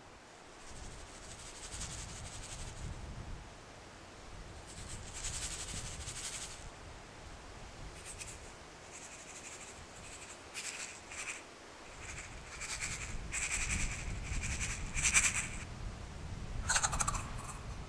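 Short bursts of scratchy, rustling noise over a low rumble. They come more often and grow louder toward the end, and a brief falling squeak comes near the end.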